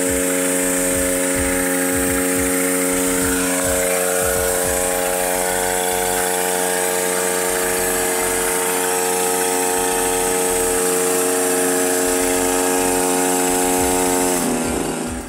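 Motorized backpack mist sprayer running steadily while it sprays from its lance, a constant hum over a strong hiss of spray. It cuts off near the end.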